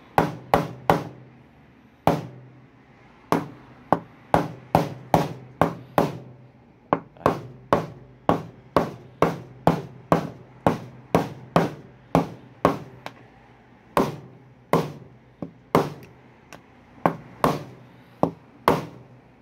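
Steel ball bearing being hammered into the plastic bearing housing of an Ariston washing machine tub, struck on its outer edge so it seats square. Dozens of sharp knocks, about two a second, in short runs with brief pauses.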